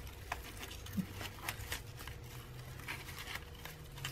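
Paper and twine rustling with small scattered ticks as fingers pick at the knot of a twine-tied bundle of old papers.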